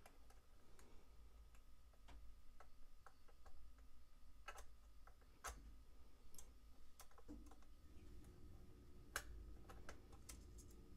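Faint, irregular small clicks of a jeweler's screwdriver and a tiny screw being handled by the fingers, some dozen or more scattered ticks.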